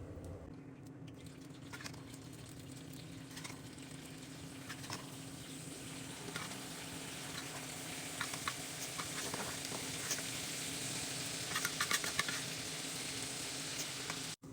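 Food frying in hot oil in a pan: a steady sizzle that grows slightly louder, with occasional clicks of a utensil stirring against the pan and a quick cluster of them near the end. It cuts off suddenly at the very end.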